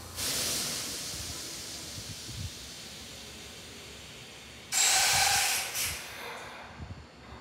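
Compressed air hissing out of a stationary Kintetsu electric train's pneumatic system, typical of brakes or other air equipment venting. A sudden burst just after the start fades over a couple of seconds, then a louder burst with a faint whistle comes about five seconds in, followed by a short smaller puff.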